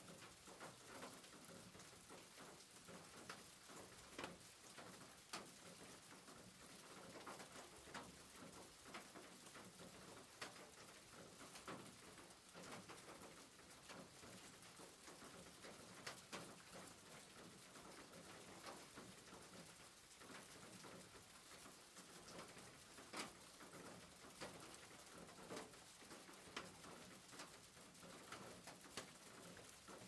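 Faint, steady rain: a hiss of rainfall with many separate drops ticking and splashing close by at irregular moments.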